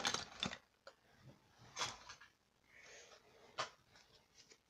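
Basketball trading cards being handled between names: a few short rustles and clicks as cards are picked up and shuffled, the loudest right at the start.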